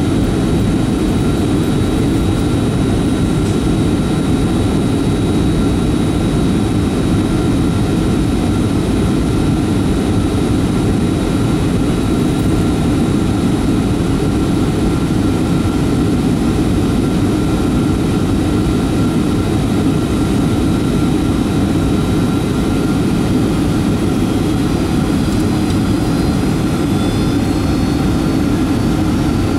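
Steady in-cabin drone of a Boeing 757-200 on approach, its Rolls-Royce RB211 turbofans and the airflow heard as a low rumble, with faint steady high-pitched whines over it.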